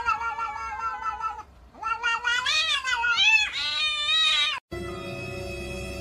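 Domestic cat yowling: a long, slowly falling call, then after a short break a run of wavering, rising and falling calls that cuts off suddenly near the end. It is the drawn-out threat yowl of cats squaring off face to face across a window.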